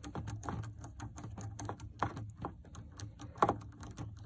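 Small, irregular clicks and ticks of a screwdriver backing out a screw that holds an HID bulb's retaining bracket inside a headlight housing, with one louder click about three and a half seconds in.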